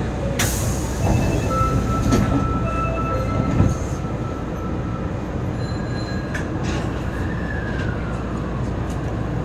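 Osaka Metro Midosuji Line train heard from the driver's cab while standing at a station: a steady low rumble, a sharp hiss about half a second in, thin squealing tones, and a faint falling whine near the end.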